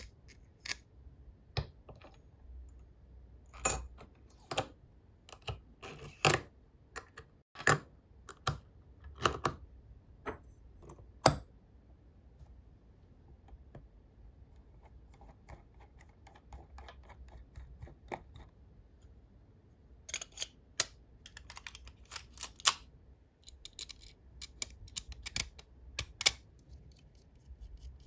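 Small machined metal parts of a full-metal turbofan engine model kit clicking and tapping against each other as they are handled and fitted together. The sharp clicks come in two busy clusters with a quieter stretch in the middle.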